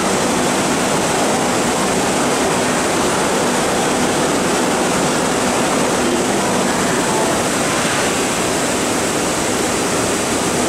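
MTR metro train running along the track behind the platform screen doors: a loud, steady rushing noise that eases slightly near the end.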